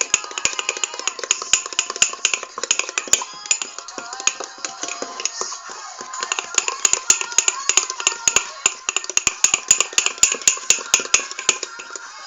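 A fork stirring thick brownie batter in a small container, clicking quickly and repeatedly against the sides. The clicking stops just before the end, with faint background music or voice under it.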